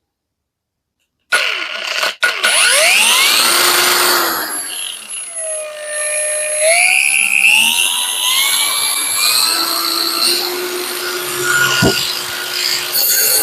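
Parkside Performance 20 V brushless cordless angle grinder starting abruptly about a second in and working, with a loud whine that falls and rises in pitch as it runs.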